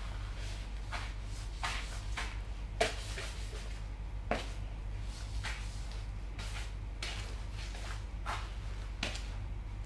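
Snakeskin cowboy boots crunching and grinding Ritz cracker crumbs against a tile floor: irregular crisp crunches, the loudest about three and four seconds in.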